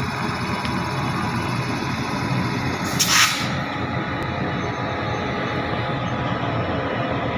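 Indian Railways WAG-9 electric locomotive moving slowly past at the head of a container freight train: a steady rumble of its running gear and machinery with wheels on the rails. A short loud hiss about three seconds in.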